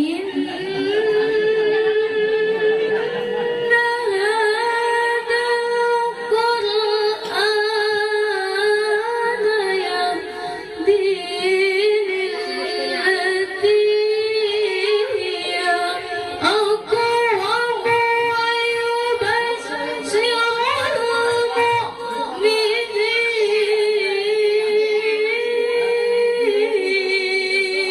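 A woman reciting the Qur'an in the melodic, sung tilawah style, holding long notes and decorating them with wavering, ornamented turns, pausing only briefly for breath.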